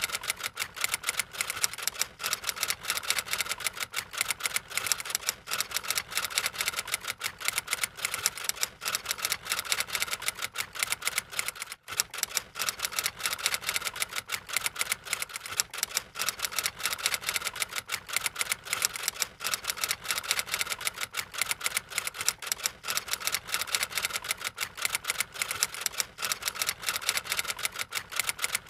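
Typing sound effect: a fast, steady run of key clicks, with one brief break about twelve seconds in.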